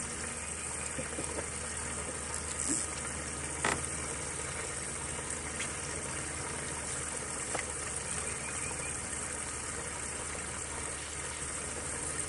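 Steady low motor hum with a few short clicks about three and four seconds in.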